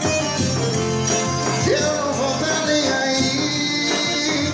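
Forró band playing a song with a steady beat.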